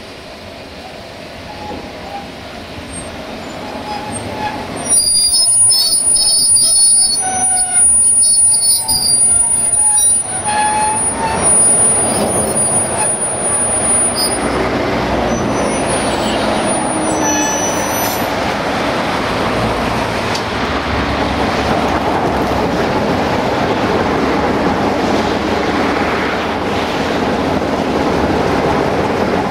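LDH1250 diesel-hydraulic locomotive passing close by at low speed, its engine running and wheels rolling on the rails. It grows louder over the first few seconds. From about five seconds in, a steady high-pitched wheel squeal lasts for several seconds before dying away, leaving the engine and rolling noise.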